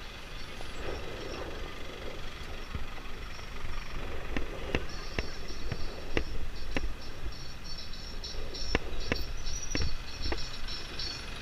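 Motorbike moving slowly: a steady low rumble, with sharp clicks and rattles from about four seconds in and a high pulsing chatter over the second half.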